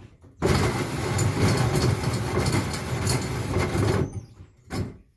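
A tool cutting through material under light pressure: a steady, loud cutting noise that starts about half a second in and stops about four seconds in, followed by a single short knock.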